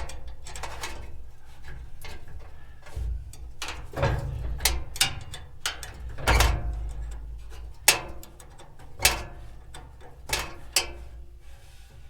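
Irregular metallic clicks, clinks and knocks as the gas grill's burner controls and fuel rail are worked loose, a few of them sharper and louder than the rest.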